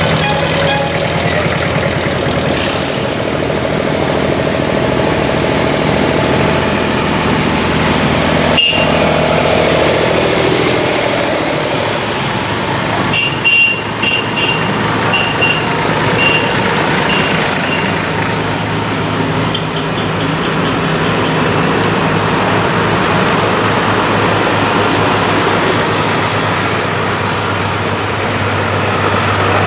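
Several farm tractors, vintage and modern, driving slowly past one after another with their diesel engines running steadily at low revs. About halfway through there is a run of short high beeps.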